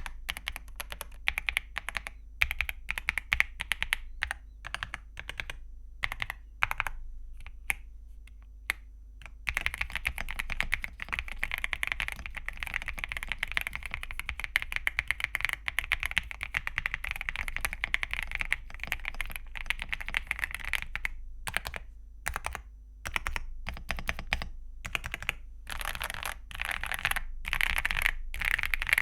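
Zuoya GMK87 mechanical keyboard with Akko V3 Crystal Pro linear switches and dye-sub PBT keycaps being typed on. Separate keystrokes come first, then about ten seconds of fast continuous typing, then separate strokes and short quick flurries near the end.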